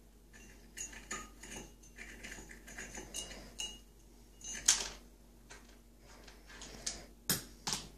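Toy army men rattling and clinking inside a mug as a cat paws and fishes at them: a string of irregular clicks and knocks, the loudest about halfway through and two more near the end.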